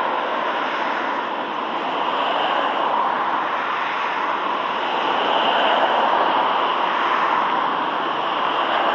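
Freight train of covered hopper wagons rolling past: a steady rush of steel wheels on rail.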